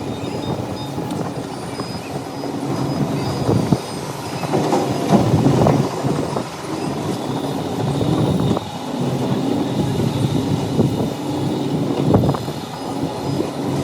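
Excavator at work: diesel engine running under load with a continuous mechanical rumble and several sharp metallic clanks and knocks.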